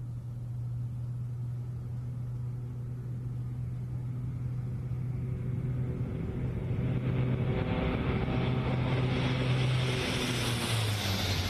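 C-130J Super Hercules turboprop engines and propellers at takeoff power: a steady low propeller drone under a roar that grows louder as the aircraft rolls toward the listener. Near the end the drone drops in pitch as the aircraft passes.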